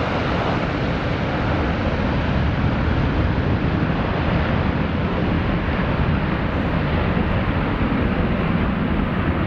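Jet airliner engines at takeoff thrust: a steady, loud rush of noise with a deep rumble underneath, its hiss slowly dulling toward the end.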